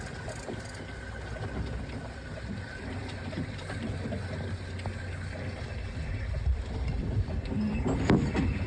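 Light sea breeze buffeting the microphone on a sailboat's deck: a steady low rumble with small gusts, and a knock near the end.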